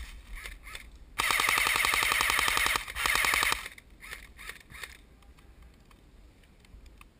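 CYMA AK47 airsoft electric gun firing full-auto: a burst of about a second and a half of rapid, evenly spaced shots, a brief pause, then a shorter burst.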